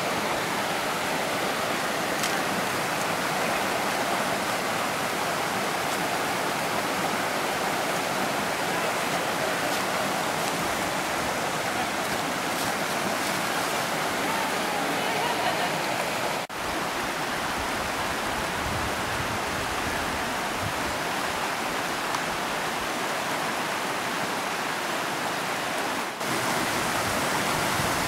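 Rocky stream rushing over stones and small cascades, a steady even rush broken by two brief dropouts, about two-thirds of the way in and near the end.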